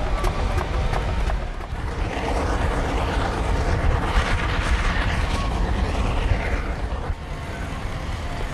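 Steam wagons and a steam traction engine running past on an open arena: a steady low rumble with hiss, with music faintly behind it.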